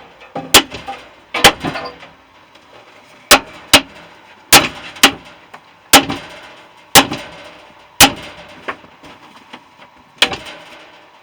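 Hard blows of a hammer striking a central air conditioner compressor's metal housing, about ten sharp strikes at irregular intervals of roughly a second, each with a brief ringing tail.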